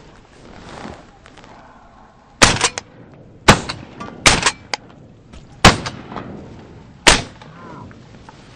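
Shotguns firing five loud shots, spaced roughly a second apart, from hunters shooting at passing geese.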